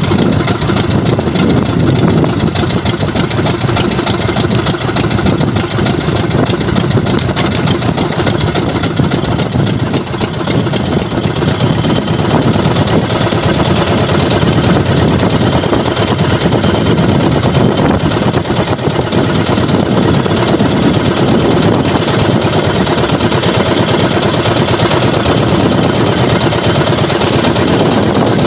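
Small outrigger boat's engine idling steadily, loud and close, with no pauses or changes.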